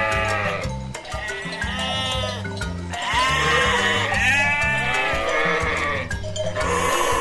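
Lamb bleating several times in a row, each call wavering in pitch, over background music with a steady beat.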